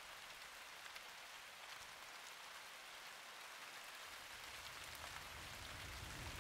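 Steady light rain falling, a soft even hiss with fine drop ticks. A low rumble grows in during the second half.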